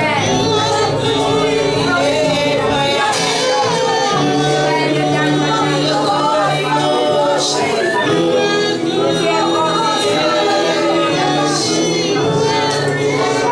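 Worship song: singers, with male and female voices, over sustained keyboard chords and bass.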